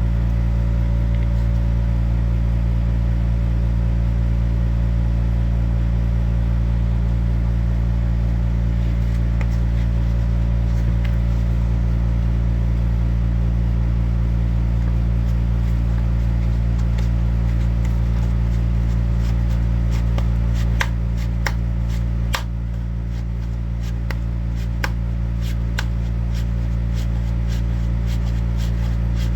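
A steady low electric hum, like a small motor or appliance running, with light clicks and ticks scattered through the last several seconds.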